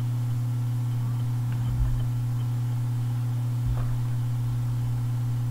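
A steady low hum, with two soft low thumps, one about two seconds in and one just under four seconds in.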